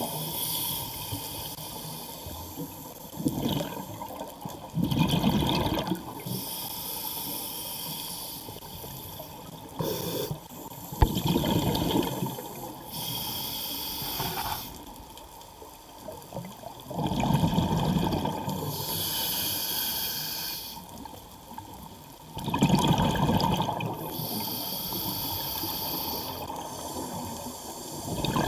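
Scuba diver breathing underwater through a regulator: hissing inhales alternating with louder, bubbling exhales, about five slow breaths.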